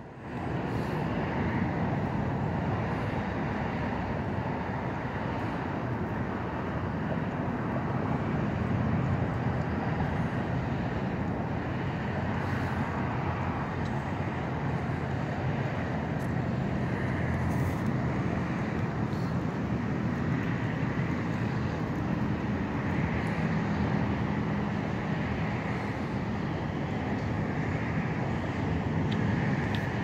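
Steady outdoor background noise: a continuous low rumble and hiss of the kind distant road traffic makes, with no distinct events.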